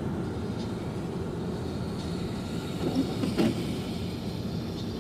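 Steady road noise of a moving car heard from inside, tyres running on a snowy highway, with a short louder knock or bump about three seconds in.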